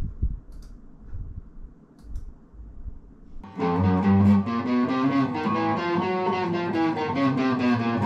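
Background music: a guitar piece that comes in suddenly about three and a half seconds in and plays on at a steady pulse, after a few seconds of low, muffled sound.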